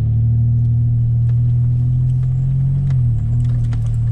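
Pickup truck's engine and drivetrain droning steadily inside the cab on a rough dirt road, with scattered knocks and rattles from the truck. The engine note dips briefly about three seconds in.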